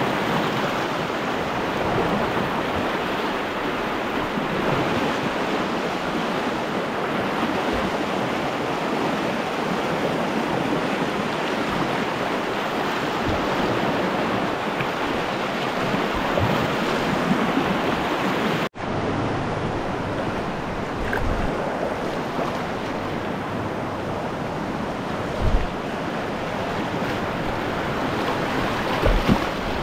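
Steady rush of river water under a whitewater kayak, with wind on the microphone. The sound drops out for an instant about two-thirds of the way through, and a couple of low thumps come near the end.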